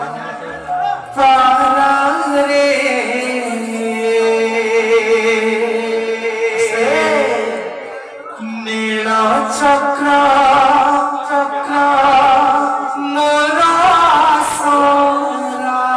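Odia kirtan music: group singing over long held notes, with a two-headed barrel drum in the ensemble. It swells up about a second in.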